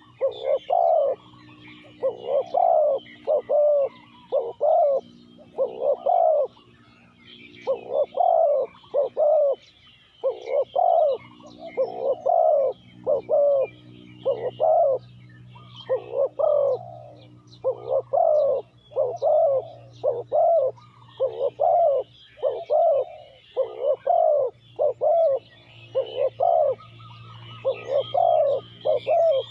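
Spotted dove cooing over and over in phrases of a few notes with short pauses between, with faint chirps of small birds behind.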